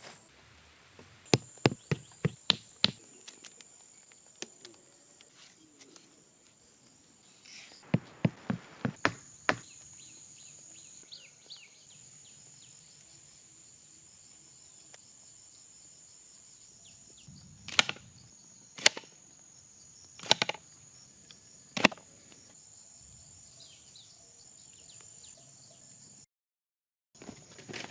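Groups of sharp knocks or chops, several in quick succession, coming three times, over a steady high-pitched insect drone.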